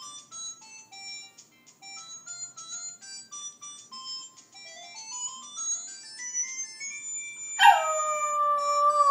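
A mobile phone ringtone plays a melody of short electronic notes. Near the end a West Highland White Terrier answers it with one long howl, the loudest sound, sliding down a little at its start and then held.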